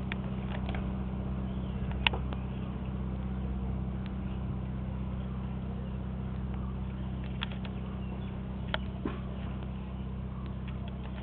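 Steady low mechanical hum, with a few sharp clicks over it.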